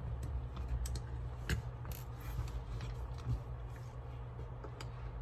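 Small screwdriver backing tiny screws out of a BlueParrott 450-XT headset's plastic housing: scattered light clicks and scrapes over a steady low hum.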